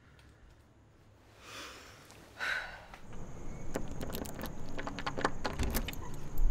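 A short breathy rush of noise about two and a half seconds in, then a set of keys jangling and clicking at a door lock and knob in a quick run of small metallic rattles.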